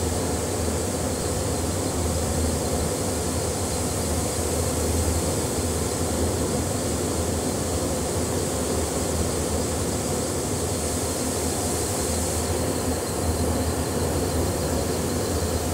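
Rice mill machinery running steadily: an even mechanical din with a low hum under a high hiss, while grain pours down a bucket-elevator chute.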